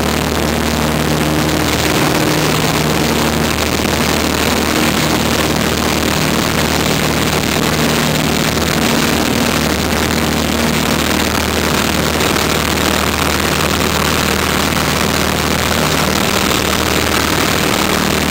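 Piper PA-19 Super Cub's piston engine and propeller running steadily at takeoff power, heard from inside the cockpit, with a constant rush of wind through the takeoff roll and climb-out.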